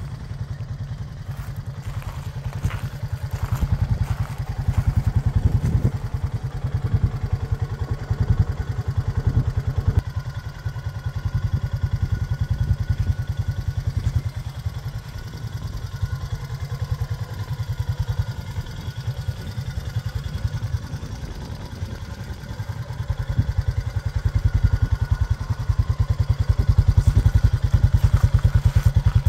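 Honda TRX500FA ATV's single-cylinder four-stroke engine idling with an even, steady low putter, louder near the end close to the exhaust.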